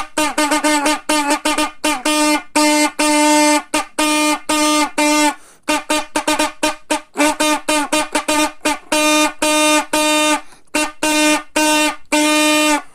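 A brassy, horn-like tone held on one pitch and sounded in rapid short blasts, with a few longer held notes between them, in a rhythmic pattern.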